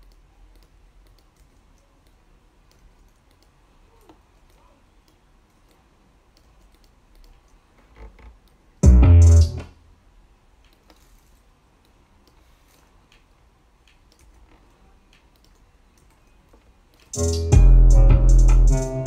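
A trap beat with heavy 808 bass plays back and stops, leaving faint mouse clicks. A short snippet of the beat plays about nine seconds in, and the full beat starts again near the end.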